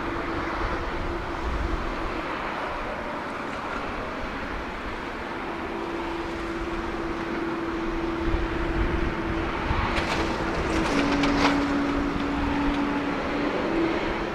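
Boeing 767-300ER jet engines rumbling steadily as the airliner touches down and rolls out on the runway, with a held tone that drops a step in pitch near the end. A few sharp clicks come about ten seconds in.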